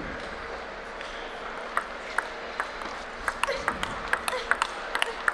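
Table tennis rally: the ball clicking off the bats and the table. It starts with a few spaced clicks of the serve and return about two seconds in, then quickens into a fast run of hits and bounces.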